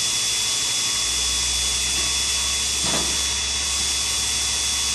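Small motors of a Sherline CNC cam-grinding machine running steadily: a high whine and hiss, with a low hum joining about a second in.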